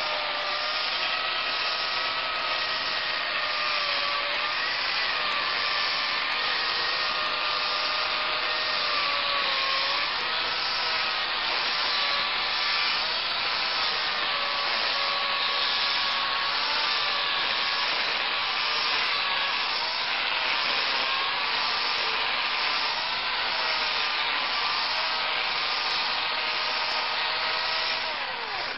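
Corded Makita electric chainsaw running and cutting through a thick wooden beam: a steady motor whine over the noise of the chain in the wood, its pitch sagging and recovering again and again as the chain bites under load.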